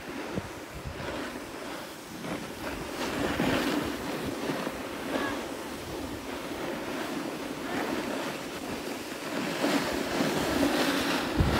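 Steady rushing hiss and scrape of sliding down a packed snow slope, with wind buffeting the microphone.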